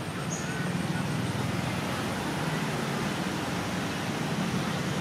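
Steady background noise: a low rumble with a hiss over it, and a brief high chirp about a third of a second in.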